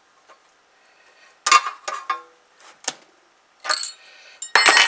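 Sharp metallic clinks of a wrench and feeler gauge working the valve adjuster lock nuts on a Predator 212 engine's rocker arms, a few separate clinks, then the loudest, ringing metal clatter near the end.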